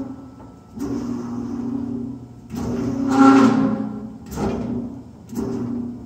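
Failing blower motor of a Reznor gas unit heater humming under power but not starting, its stiff, seized-feeling bearings keeping it from spinning up. The hum swells and fades four times, loudest about three seconds in, with a rushing scrape over it.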